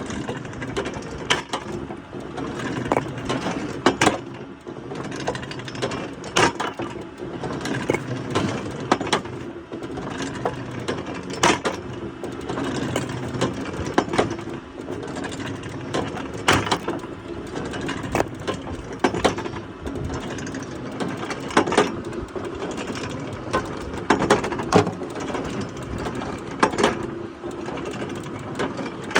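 Woodworking machinery running with a steady low hum, with frequent irregular knocks and clicks of wood being worked.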